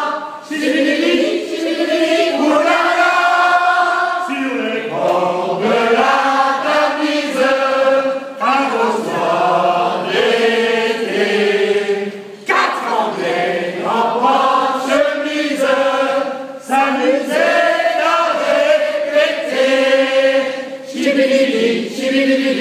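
A group of men singing together in chorus, in phrases of about four seconds with short breaks between them.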